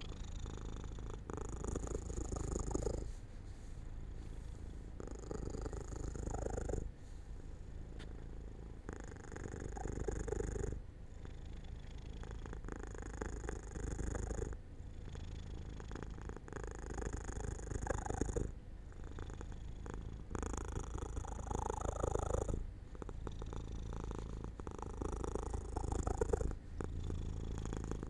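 Domestic cat purring continuously, the rumble changing every few seconds as it breathes in and out.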